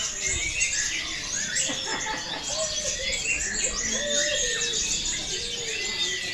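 Many songbirds singing at once, a dense tangle of overlapping high whistles, trills and chirps with some lower slurred notes.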